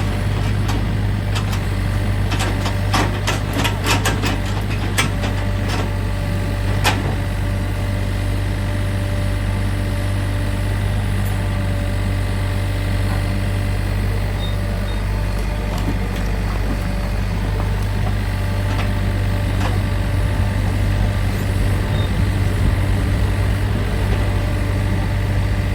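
Mini excavator's diesel engine running steadily. Several sharp clicks and knocks come in the first few seconds, then only the engine hum.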